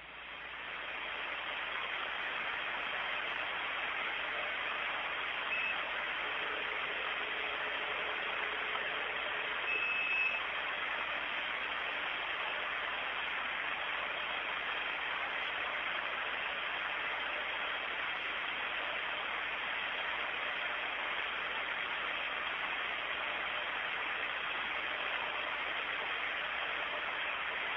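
Steady hiss of an open radio communications channel, with a faint short whistle about ten seconds in.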